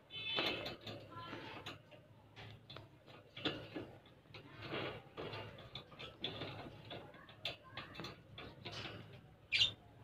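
Caged lovebirds chirping and squawking in short, scattered calls, mixed with light clicks and scuffles, with one sharp, loud squawk near the end.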